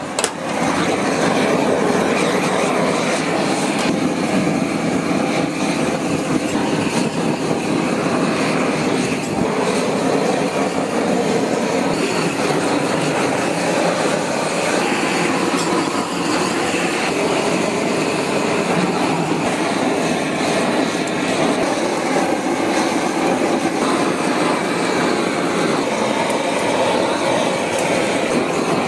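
Handheld butane blowtorch on a gas canister, burning with a steady loud hiss as its flame sears thin slices of raw beef; it comes on suddenly just after the start.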